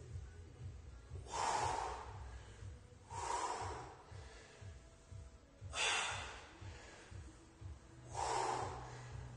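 A man's forceful breaths of exertion while lifting dumbbells through stiff-legged deadlifts into upright rows: four sharp, breathy puffs, one with each rep, about every two and a half seconds.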